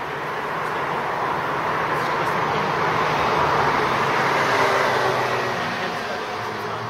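A passing road vehicle: a steady rush of noise that swells to a peak about four to five seconds in and then fades away.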